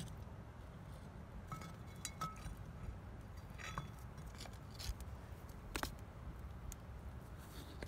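A few sharp metallic clinks, some ringing briefly, as the knife and chopsticks rattle against a small oiled frying pan being lifted and set on stones over a wood fire.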